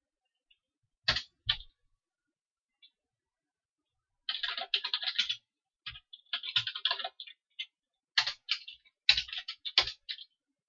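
Computer keyboard being typed on: two single sharp keystrokes about a second in, then three quick runs of key clicks with short pauses between them.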